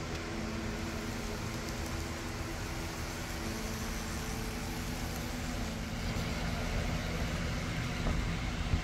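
Märklin Z-scale Union Pacific PA1 model diesel locomotive running on its track: a steady hum from its small electric motor and running gear, with a low rumble of the wheels on the rails.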